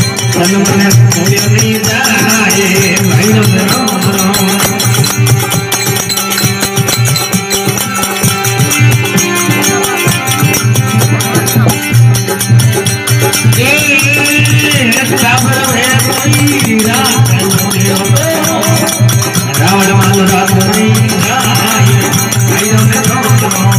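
Live folk devotional music: a harmonium playing the melody over a steady beat on a dholak hand drum, with a continuous jingling rattle of small hand percussion on the beat.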